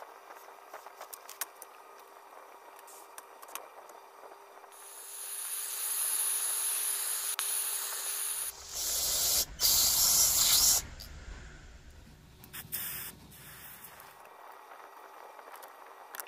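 Light ticks of small parts being handled, then a steady hissing spray that starts about five seconds in, grows into a louder blast around ten seconds in, and ends with two short spurts.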